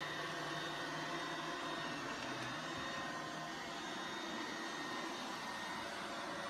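Roomba robot vacuum running: a steady whir and hiss with a faint motor whine that holds one pitch.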